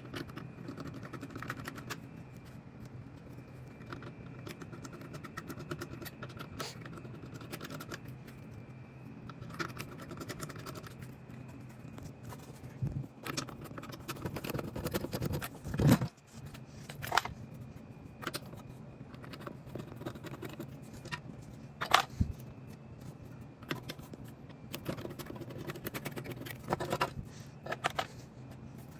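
Ceiling fan being disassembled by hand: metal parts and screws clinking, rattling and scraping, with a few louder knocks about halfway through and again a few seconds later.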